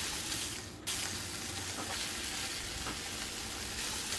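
Ground meat sizzling as it browns in a frying pan on the stove: a steady hiss, with a brief break about a second in.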